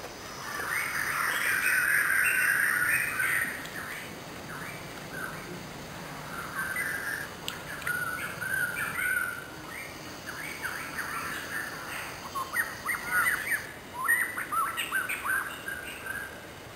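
Wild birds chirping and calling in tropical forest. A dense run of calls comes in the first few seconds, then scattered chirps, then quick repeated chirps near the end.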